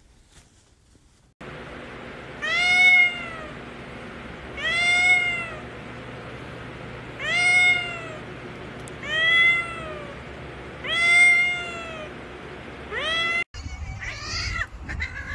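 A domestic cat meowing repeatedly after a second or so of near silence: six drawn-out meows about two seconds apart, each rising then falling in pitch. Near the end, after a cut, another cat meows.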